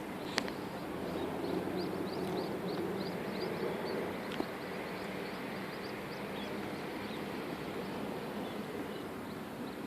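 Mandarin ducklings peeping: a quick run of short, high chirps, two or three a second, for the first four seconds or so, then only a few, over a steady low hum. A single sharp click about half a second in.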